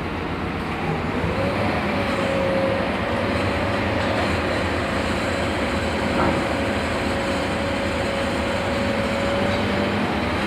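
Heavy machinery running steadily, with a whine that rises slightly about a second and a half in and then holds.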